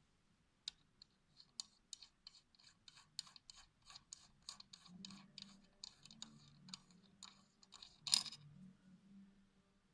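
A run of light clicks and taps, roughly three or four a second and uneven, from parts being handled during motorcycle repair work, with one louder clack near the end.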